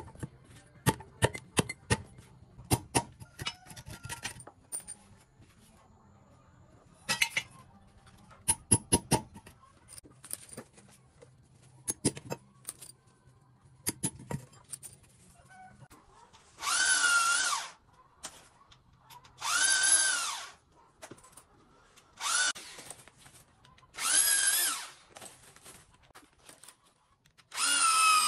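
A run of sharp knocks of a metal blade striking a wooden log, in clusters through the first half. Then a power drill runs in five short bursts of about a second each, its whine rising as it spins up and falling as it stops.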